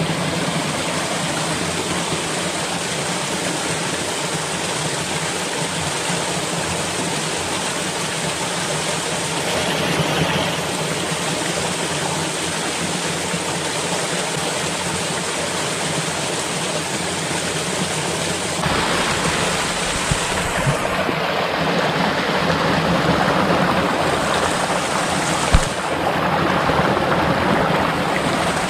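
Steady rush of falling water, with a shift in its tone about two-thirds of the way through and a single short knock near the end.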